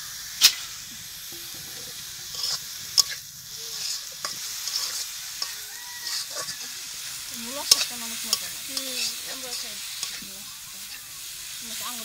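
Leafy greens and onion sizzling steadily in a black metal wok while a metal spatula stirs and scrapes through them. Sharp clinks of the spatula striking the pan come a few times: about half a second in, near 3 s, near 8 s and at the very end.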